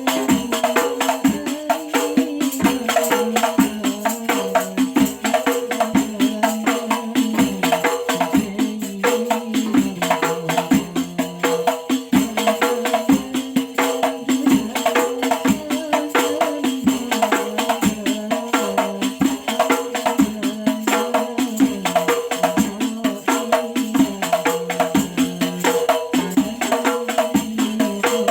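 Hadrah ensemble playing: rebana frame drums beating a fast, dense, steady rhythm, with a sustained melody line that moves between a few pitches.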